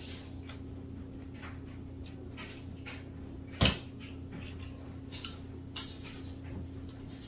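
Plastic canless LED recessed light being worked out of a drywall ceiling hole: scattered light clicks and scrapes, with one sharp knock about three and a half seconds in and two smaller ones a couple of seconds later. A steady low hum runs underneath.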